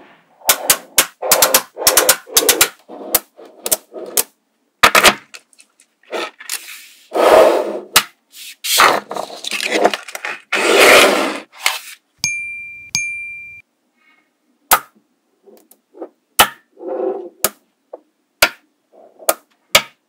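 Small steel neodymium magnet balls clicking and clacking sharply as blocks of them snap together, with longer rattling scrapes as the packed rows shift and slide. A brief ringing tone sounds about twelve seconds in.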